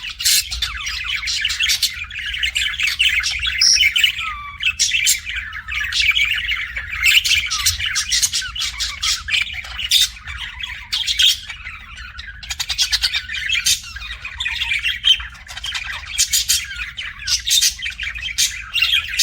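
Budgerigar chattering: a continuous run of quick chirps and squawks with no pauses.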